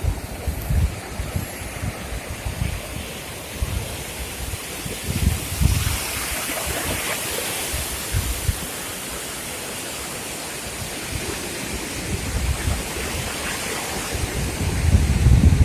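Sea surf washing in, a wave swelling into a broad hiss about six seconds in, with wind buffeting the microphone in low gusts that grow strong near the end.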